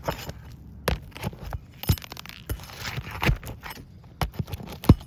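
Metal pieces clinking and knocking as they are handled: about six sharp, irregular clicks over five seconds.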